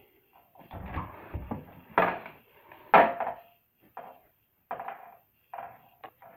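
A series of clattering knocks from objects being handled, the two loudest about two and three seconds in, with lighter ones after.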